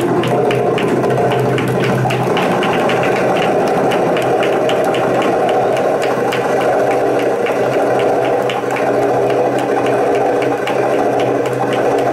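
Middle Eastern belly-dance music played loud over a PA loudspeaker, driven by fast, evenly repeating drum strokes.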